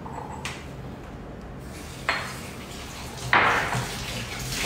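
Hard kitchenware knocks and clatter as a stone mortar and pestle are picked up and set down: three sharp knocks, about half a second, two seconds and three and a half seconds in, the last the loudest with a ringing tail.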